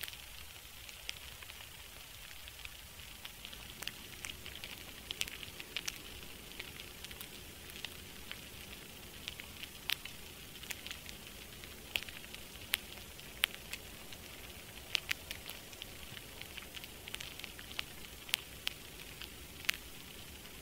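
Steady hiss with irregular sharp crackles and pops scattered through it, the kind of crackling noise track used as a background bed.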